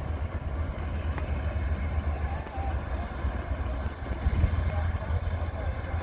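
Combine harvester running steadily while cutting wheat, a deep continuous engine rumble.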